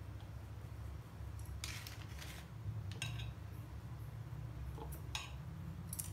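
A few brief clinks and scrapes of a spatula and kitchen utensils against a glass plate, over a steady low hum.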